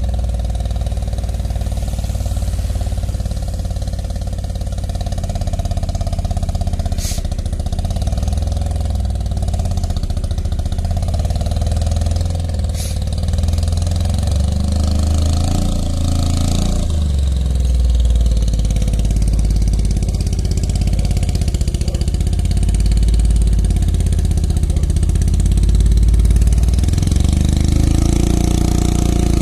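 Mazda Savanna RX-7 (SA22C) with a 13B rotary engine, its exhaust running at low revs as the car reverses slowly, getting a little louder near the end as it comes closer.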